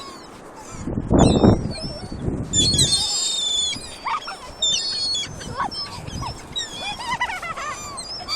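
A flock of gulls calling over one another in many short, overlapping, high cries as they are fed, with the calls thickest a few seconds in. A loud low rush about a second in.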